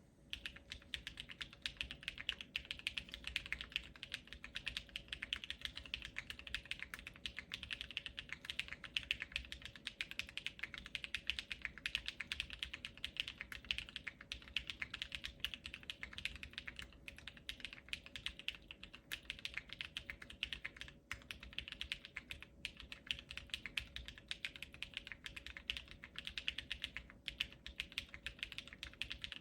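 Custom mechanical keyboard with a POM plate, lubed Durock Sunflower tactile switches and ABS keycaps, typed on fast and without letup: a dense run of keystroke clacks that begins right at the start.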